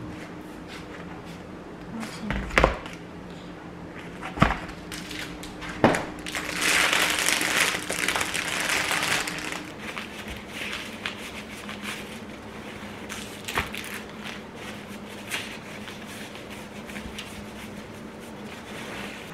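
Kitchen food-prep handling noises: three sharp knocks in the first six seconds, then a few seconds of crinkling plastic and paper. After that come soft taps and rustles as kitchen paper is pressed onto minced meat in a plastic tray, over a faint steady hum.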